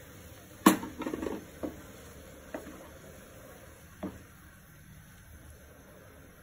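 Utensils knocking against a metal pan as rice flour is stirred into hot water with a plastic spatula: one sharp knock about a second in, a short burst of clatter, then three lighter taps spaced about a second apart.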